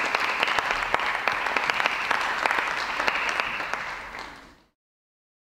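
Audience applauding, fading out about four seconds in and then cutting off to silence.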